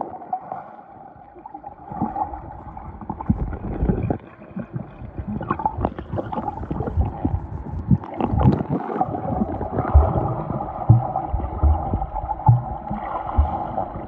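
Muffled sound of a swimmer in a swimming pool, heard from a camera held underwater: gurgling water and bubbles, with a steady dull hum. Several dull low thumps come in the second half.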